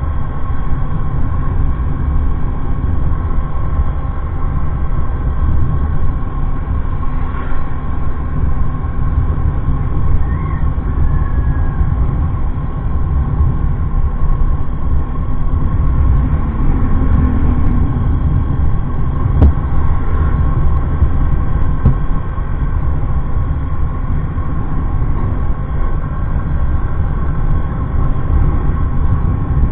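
Steady low rumble of wind buffeting and road noise on the microphone of a camera mounted on a vehicle moving along a paved highway.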